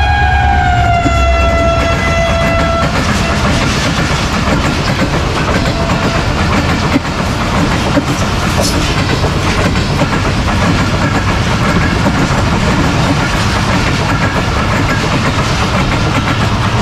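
A diesel locomotive's multi-tone horn sounds as the train passes, its pitch falling slightly, and stops about three seconds in. Then comes the steady rush and clatter of passenger coaches running through the station at speed over the rail joints.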